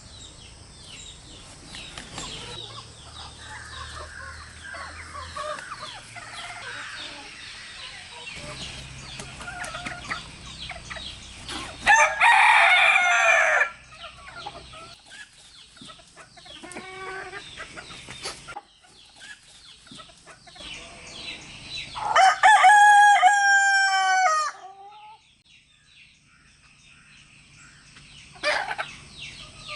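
Roosters crowing twice, hens clucking and chattering between the crows. The first crow, about twelve seconds in, is rasping. The second, about ten seconds later, is longer and clearer and drops in pitch at its end.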